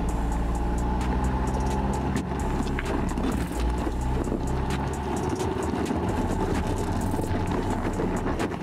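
2020 Land Rover Defender's engine running steadily under load as the SUV crawls in low range over rock, with scattered clicks and crunches of stone under the tyres.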